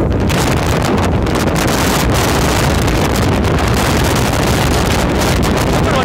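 Strong wind buffeting the microphone: a loud, steady rumbling roar.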